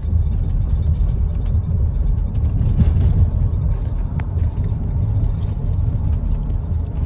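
Steady low rumble of a car cabin while driving, with a few light clicks and rustles from the phone being handled.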